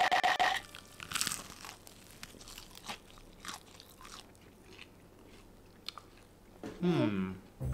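Crispy battered fried chicken crunching as it is bitten and chewed close to a table microphone: a run of sharp, irregular crunches.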